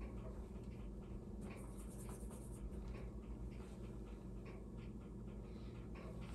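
Faint, scratchy strokes of a bristle brush laying oil paint on a canvas, short and irregular, over a steady low room hum.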